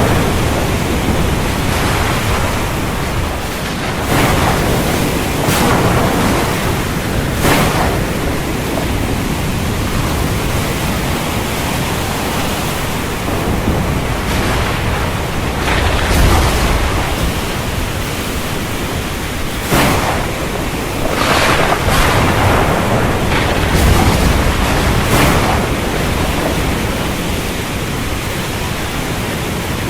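Storm wind and ocean surf: a loud, steady rush of noise with surges every few seconds.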